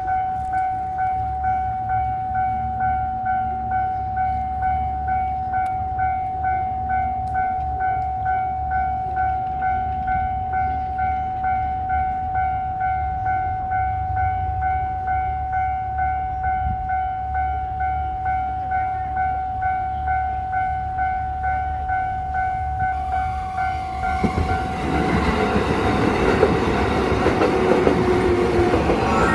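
Japanese level-crossing alarm ringing, a steady electronic ding repeating at about three strikes every two seconds. A train rumbles through the crossing over the last five seconds.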